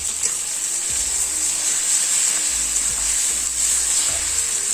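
Chopped tomatoes and onions frying in hot mustard oil in a kadai, sizzling steadily.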